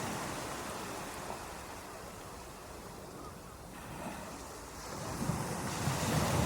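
Ocean waves washing onto a beach: the surf ebbs to a lull midway, then swells again as the next wave breaks near the end.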